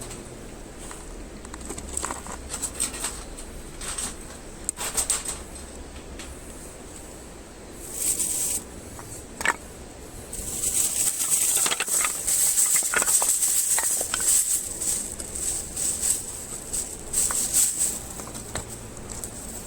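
Crackling and rustling while a campfire is being lit: scattered snaps and clicks at first, then a louder, denser run of crackling from about ten seconds in that eases off near the end.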